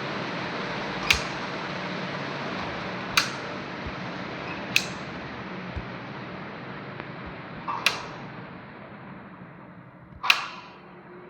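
Electric fan blowing with a steady airy hum that slowly grows quieter and duller, as if winding down. Five sharp clicks cut through it, the last and loudest near the end.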